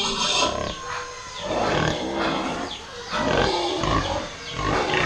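Pigs in metal stalls calling, a run of loud, rough calls repeating irregularly.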